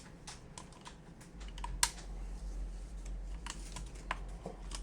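Plastic keycap clicks and taps on a HyperX mechanical keyboard as a pudding keycap is pulled off and pressed onto its switch. The clicks are scattered and irregular, with one louder snap about two seconds in.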